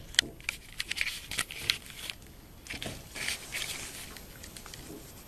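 Irregular crackling, rustling and clicking close to the microphone, from the camera being handled and fur brushing against it.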